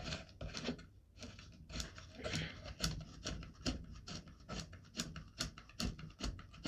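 Hard plastic rifle-stock parts clicking and knocking as a cheek-rest piece is worked and pressed onto the buttstock by hand: irregular short clicks, several a second.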